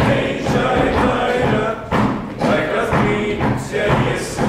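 Choral singing with musical accompaniment, with repeated heavy thuds through it.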